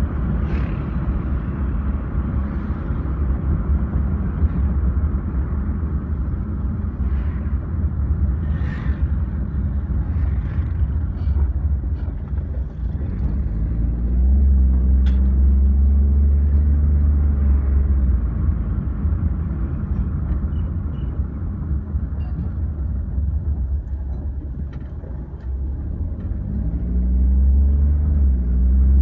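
Car driving on a town road: steady low engine and road rumble, the engine note rising as it speeds up about halfway through and again near the end, with a few brief sharp sounds from traffic.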